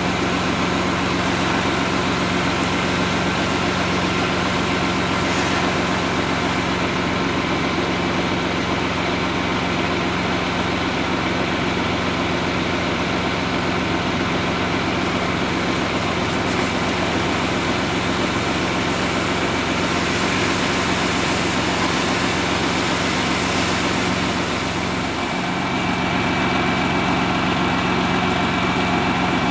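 Fire engine's diesel engine running steadily, driving the pump that feeds the hose line. About 25 seconds in the hum dips briefly, and then a faint high whine joins it.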